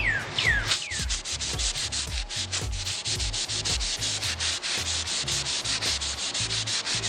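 Sandpaper rubbed over wood by hand in quick, even back-and-forth strokes, about six or seven a second.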